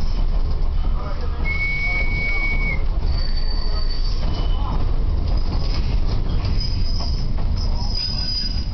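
Illinois Terminal 101, a 1917 American Car Company electric interurban car, rolling slowly through yard trackwork with a steady low rumble. Several short, high-pitched wheel squeals sound over it; the clearest comes about a second and a half in and lasts about a second.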